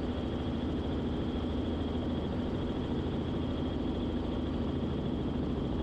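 Robinson R44 Clipper II helicopter in cruise: the steady drone of its six-cylinder piston engine and rotors, even and unchanging, with a faint high whine running through it.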